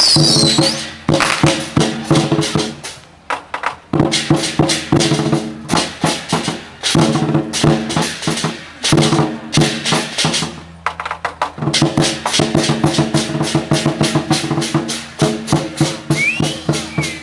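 Procession percussion music: drums and cymbals beating a fast, steady rhythm over sustained held notes, breaking off briefly about three seconds in and again about ten seconds in.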